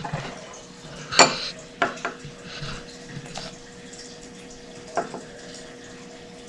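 A spoon clinking and tapping against a bowl as cornstarch is scooped and added, a few separate clicks with the sharpest about a second in, over a faint steady hum.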